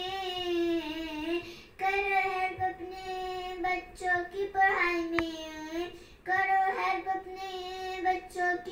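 A young girl singing solo and unaccompanied, holding long notes in phrases of about two seconds with short breaths between them. A single small click sounds about halfway through.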